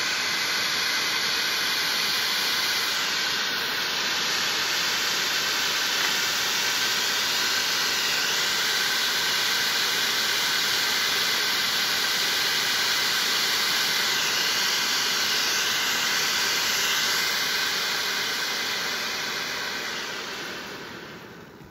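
Funke 7m Fontäne, a 250 g ground firework fountain, spraying sparks with a loud, steady hiss. The hiss fades away in the last second or two as the fountain burns out.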